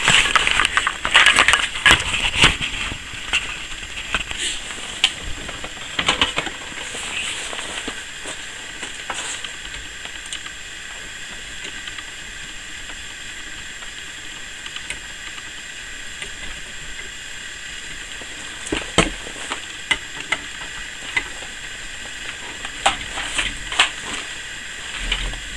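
Frozen wire insulation being cut and peeled off copper wire with a pipe cutter converted into a wire stripper: irregular crunching and cracking, thick at first and again in bursts near the end, with quieter stretches between.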